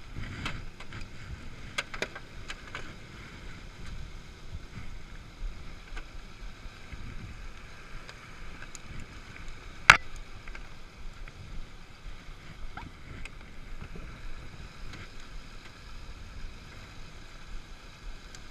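VIAIR portable air compressor running steadily while inflating a plugged tire, with a few sharp clicks and one loud knock about halfway through.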